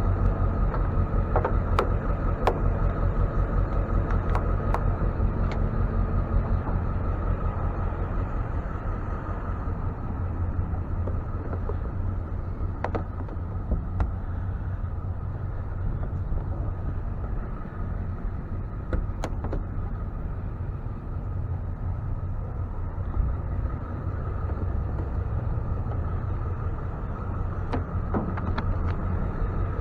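Tow truck engine idling steadily with a constant whine over it, and scattered sharp metallic clicks and knocks from the hookup gear.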